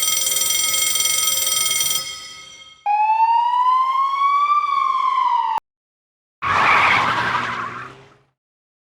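A string of short stock sound effects played one after another: a ringing chord of steady tones that fades away, then a siren-like wail that rises, falls and cuts off suddenly, then a noisy rushing burst that dies out.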